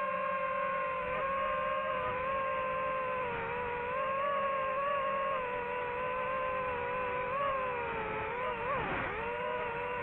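DJI FPV drone's motors and propellers whining steadily, the pitch wavering with throttle and dipping sharply then climbing back about nine seconds in.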